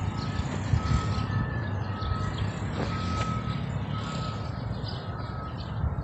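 A vehicle's reversing alarm beeping, one short steady beep about once a second, over a steady low background rumble.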